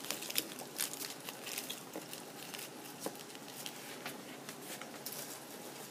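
Scattered small wet clicks and rustles of someone chewing a sticky straw-wrapped banana sweet close to the microphone, denser in the first couple of seconds and then sparser.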